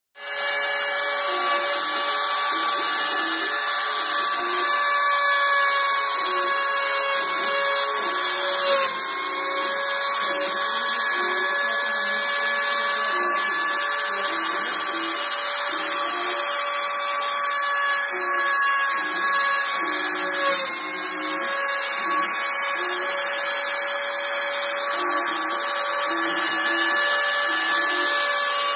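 CNC router spindle running with a steady high-pitched whine while milling a relief into a flat panel, with a lower, changing whir underneath. The whine dips briefly twice, about nine seconds in and again about twenty seconds in.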